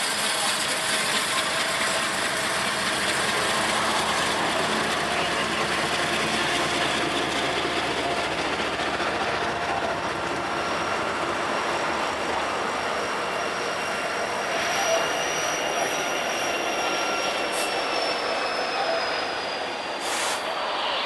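Freight train passing: Union Pacific and Norfolk Southern diesel-electric locomotives go by, then double-stacked intermodal container cars roll past with steady wheel-on-rail noise. A thin, high wheel squeal comes in about two-thirds of the way through and slowly drops in pitch.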